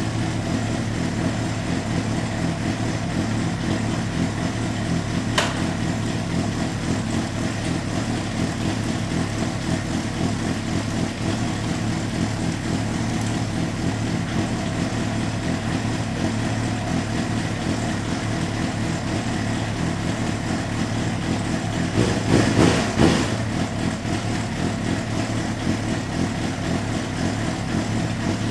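Honda CBR600RR inline-four engine idling steadily in first gear, the bike on a rear stand with its rear wheel turning. A single sharp click about five seconds in and a brief louder clatter around twenty-two seconds in.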